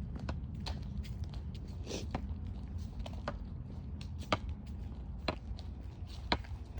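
Footsteps of people walking: irregular light crunching steps, about two a second, over a steady low rumble.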